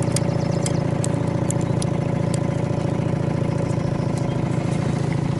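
Outboard motor idling steadily at an even pitch, with a few light clicks over it.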